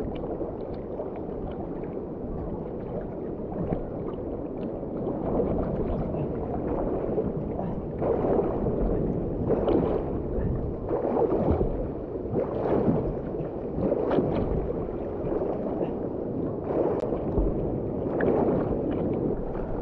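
Sea water splashing and sloshing right at the microphone as a swimmer strokes on his back, with a surge of splashing about every second and a half from about eight seconds in.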